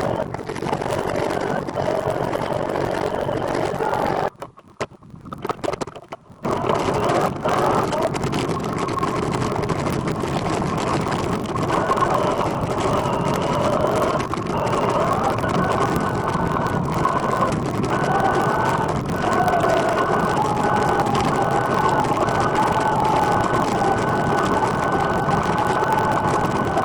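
Riding noise from a recumbent trike on the move: a steady rumbling noise with a high whine that wavers in pitch. The sound drops out briefly about five seconds in.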